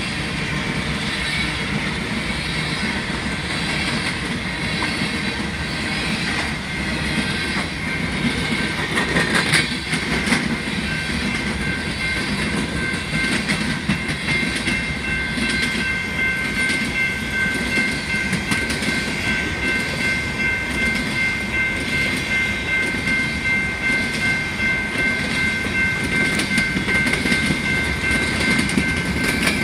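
Empty coal hopper cars of a long freight train rolling past, their wheels clacking in a steady rhythm. A steady high-pitched ring joins in about ten seconds in.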